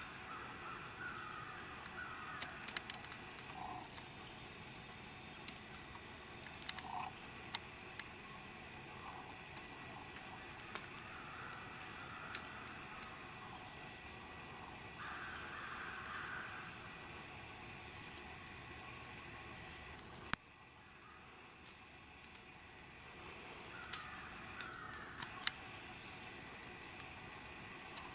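Steady high-pitched drone of a summer insect chorus in woodland, with a few scattered bird calls in the background. The sound drops out suddenly about two-thirds of the way through, then the insect drone comes back.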